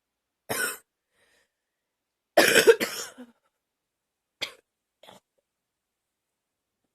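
A girl coughing in separate fits: one cough about half a second in, then a louder double cough around two and a half seconds, then two short, fainter coughs.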